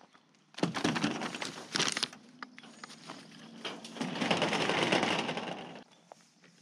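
Clear plastic sheeting over a goat pen crinkling and crackling as it is handled and banged, in two long bursts: one starting just after half a second in and lasting about a second and a half, the second starting about four seconds in and lasting nearly two seconds.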